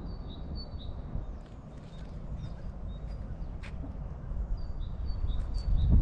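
A small songbird calling in quick runs of short, high notes, once at the start and again about five seconds in, with a single sharp chirp between them, over a steady low rumble. Footsteps on the path come closer near the end.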